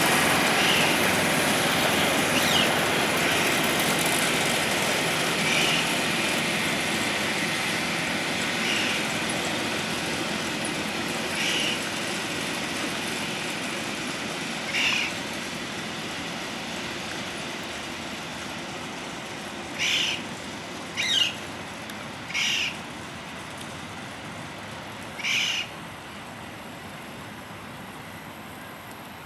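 Miniature park train locomotive running as it drives away, its noise fading steadily. Short, sharp bird calls break in at intervals, several of them in the last third.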